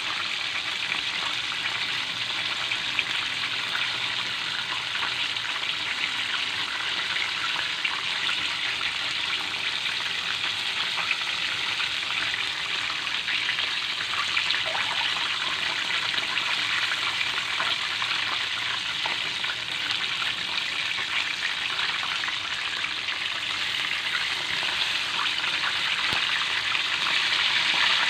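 Chicken pieces deep-frying in hot oil in a metal pan: a steady sizzle with fine crackles, growing a little louder near the end.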